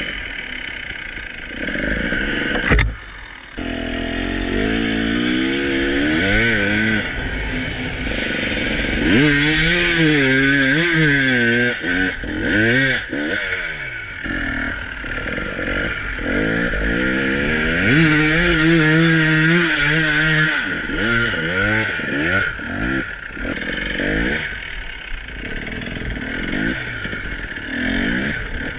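2018 KTM EXC 300 TPI two-stroke dirt bike engine revving up and down over and over, with clattering and scraping from the bike working over rough ground. A sharp knock comes about three seconds in, and the engine briefly drops off right after it.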